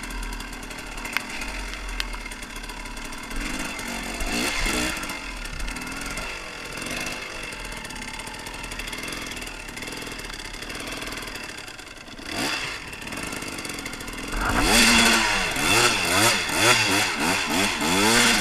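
Husaberg TE 300 two-stroke dirt bike engine running at low revs with a few short throttle blips, then revving hard, rising and falling again and again, for the last few seconds as the bike accelerates.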